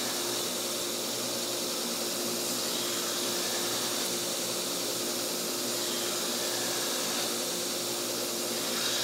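Belt grinder running a cork belt with a steel knife blade held against it, refining the grind to a satin finish. It makes a steady whir with a low hum that holds even throughout.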